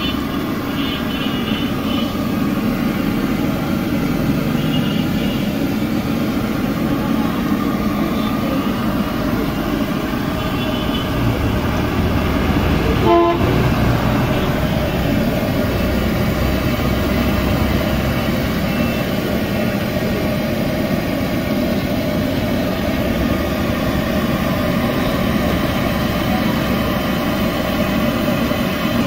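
Street traffic noise: a steady din of vehicles with horns tooting now and then, and one short, louder horn blast about halfway through.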